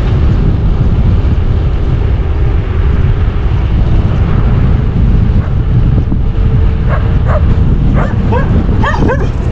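Wind rushing over the microphone on a fast bicycle descent, with dogs barking several times from about seven seconds in.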